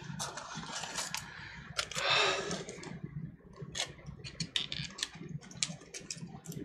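Computer keyboard typing: quick, irregular key clicks, with a short, louder rustle about two seconds in.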